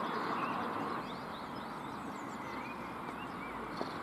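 Birds chirping and singing over a steady outdoor background hiss.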